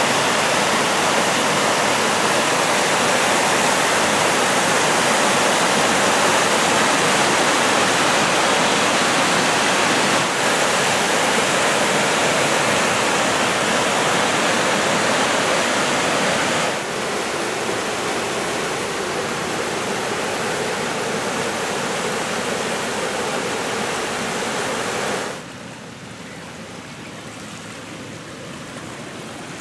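Swollen, muddy river in flood, rushing steadily over rapids. The rushing drops abruptly in loudness twice, about seventeen and twenty-five seconds in.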